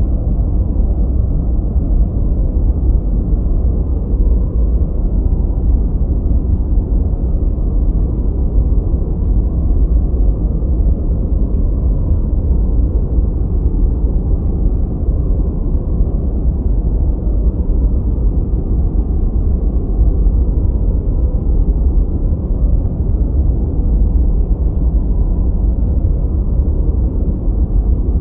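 Steady ambient noise track played for studying, a deep, even rumble of noise with almost no hiss above it.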